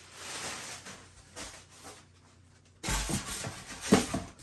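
Plastic packaging rustling, then after a short lull a louder stretch of rubbing and scraping as a foam packing insert is lifted out of a cardboard box.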